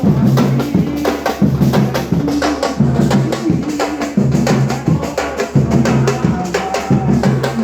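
Pelourinho drum group playing a fast, steady rhythm together: deep bass-drum notes recur about every two-thirds of a second under a dense run of sharp drum strokes.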